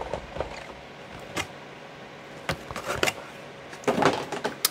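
Stiff clear plastic clamshell packaging being handled and set down: scattered crackles and clicks, with a busier cluster of crinkling near the end. Underneath runs a steady hum of computer fans.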